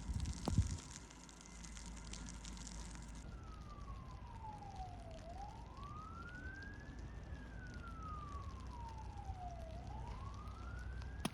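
Emergency vehicle siren on a slow wail, its pitch sweeping down and up about twice, starting a few seconds in over a steady low rumble. A short thump about half a second in is the loudest moment.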